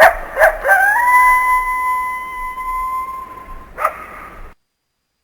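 Coyote giving two short yips, then one long howl that rises briefly and holds a steady pitch for about three seconds, then another short yip. The sound stops abruptly about a second before the end.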